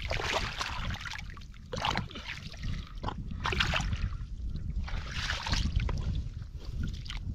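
Hands splashing and sloshing through shallow muddy water while groping in the mud for fish, in irregular bursts a second or two apart, over a steady low rumble.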